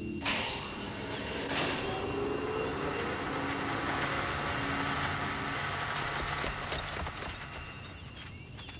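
Animated sound effects of descent cables dropping from an aircraft and soldiers sliding down them. A sharp metallic clank near the start and another about a second and a half in, each followed by a whine rising in pitch. Under them is a steady mechanical hum with hiss, which fades over the last couple of seconds.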